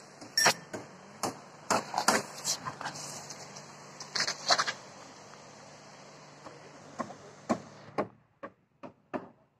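Irregular sharp knocks and clacks, well over a dozen, over a steady background hum that cuts off suddenly about eight seconds in; the last few knocks come in near silence.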